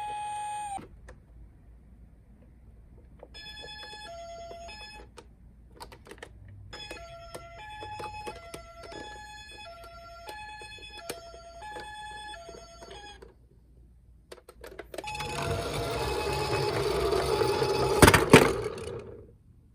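Electronic two-tone hi-lo siren from a toy ambulance, alternating between two pitches about every half second, in a short stretch and then a longer one. Near the end comes a louder rattling noise with a couple of sharp clacks.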